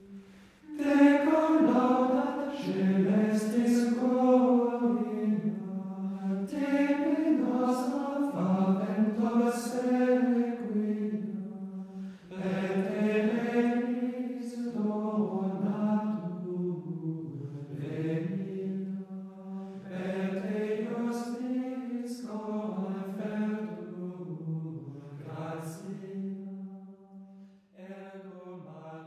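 Sacred vocal chant: sung phrases rising and falling over a steady, held low drone, fading away near the end.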